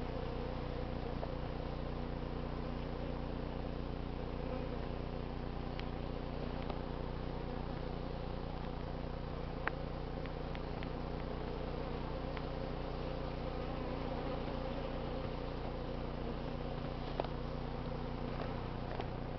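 A large colony of feral honey bees buzzing, a steady unbroken hum, with a few light clicks in the middle and near the end.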